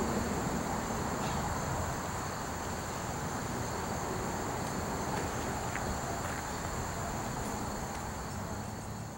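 Insects chirring steadily and high-pitched outdoors, over a low steady hum.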